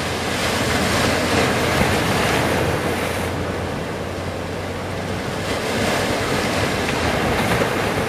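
Large ocean waves breaking and washing in heavy surf, rising and falling in surges.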